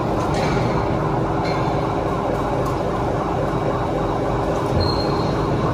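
Hydraulic pump and motor of a WC67K CNC press brake running steadily, a continuous hum with a faint whine.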